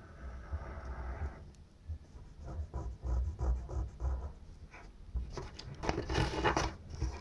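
Pencil scratching on a sheet of notebook paper as a circle is drawn, first as a soft steady scratch, then as a run of short strokes, growing louder and denser near the end, with dull knocks against the table.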